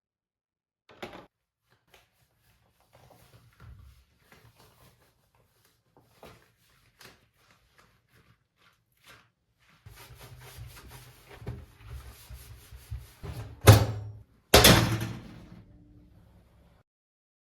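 Household handling sounds: scattered light clicks and knocks, then from about ten seconds a stretch of steady noise with a low hum, ending in two loud thuds about a second apart, like a cupboard or appliance door being shut.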